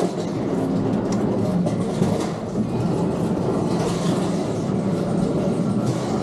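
Roller coaster chain lift clattering steadily as it pulls the car up the lift hill.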